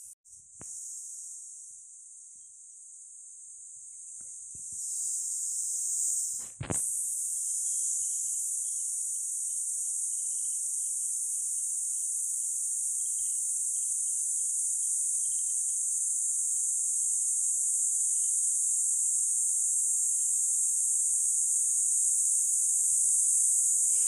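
A dense chorus of insects: a steady high-pitched buzz that swells a few seconds in and breaks off for an instant just before seven seconds, with fainter short chirps above the drone.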